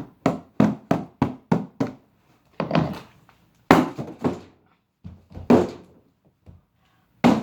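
Hammer blows on a cardboard box: a quick run of about seven strikes in the first two seconds, then five slower, heavier thuds.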